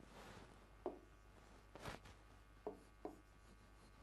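Faint red marker strokes on a whiteboard: short squeaks and scratches as words and a bracket are written, about four separate strokes spread over the few seconds.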